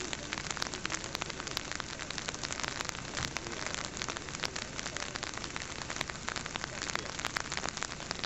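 Rain pattering steadily close to the microphone, a dense crackle of small drops.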